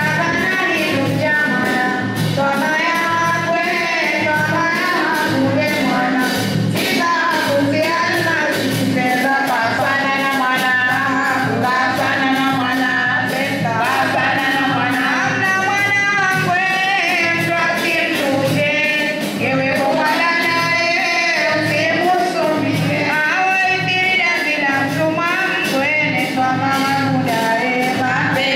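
A group of women singing together over a steady percussion beat of about two strokes a second, with rattling, tambourine-like percussion on top.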